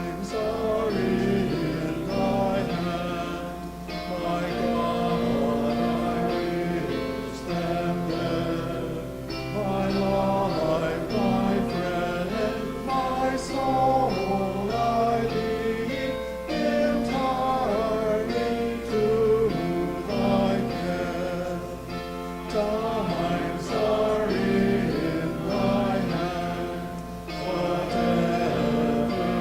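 Congregation singing a hymn together, with instrumental accompaniment.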